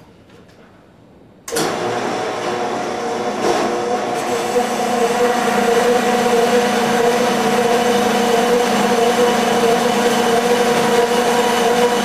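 Asada Beaver 6 portable band saw switched on about a second and a half in, then running steadily with a loud, even machine whine, its blade on a metal pipe held in the chain vise.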